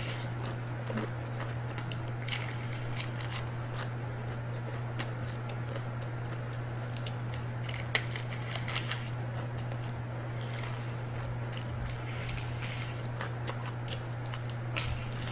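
Close-up eating of crispy fried chicken: crunchy bites and chewing, with scattered sharp crackles of the crust. A steady low hum runs underneath.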